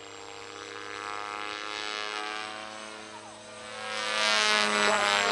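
RC helicopter flying an inverted backward circle, its rotor and motor making a steady whine with many overtones that swells louder about four seconds in.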